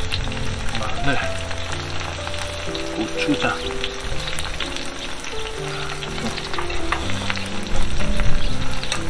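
Pork belly and green onions sizzling and crackling as they fry, over background music of slow held notes.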